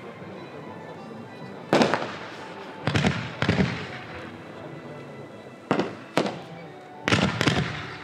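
Jorge 50 mm Italian Roman candle firing: sharp bangs, mostly in pairs about half a second apart, seven in all, each trailing off in a short fading rush.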